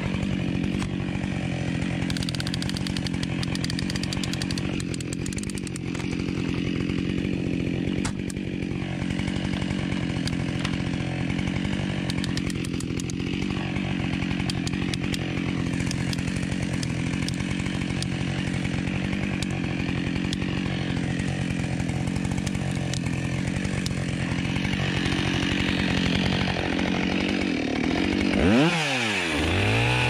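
Chainsaw engine idling steadily, then revved up to high speed about two seconds before the end as the saw goes into the back cut of the tree.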